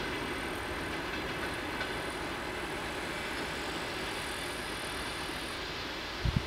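Passenger train running past on the rails, a steady rolling rumble that slowly fades. Two brief low thumps near the end.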